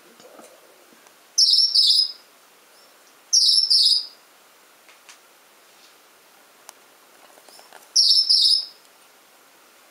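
Male Gouldian finch giving a loud, very high-pitched call three times, each a quick pair of notes: once about a second and a half in, again two seconds later, and once more near the end.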